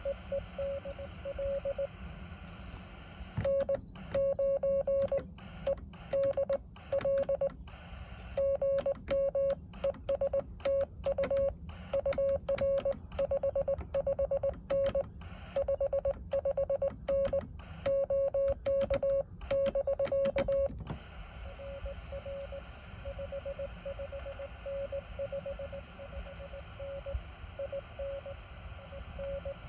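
Morse code (CW) tones from a Yaesu FT-817 ham transceiver, a single steady-pitched tone keyed in dits and dahs. From about 3 s in to about 21 s it is louder and clean, with the band hiss gone between characters, as when the operator's own sending is heard as sidetone. Before and after that, a fainter keyed tone sounds over steady band hiss, as received from other stations.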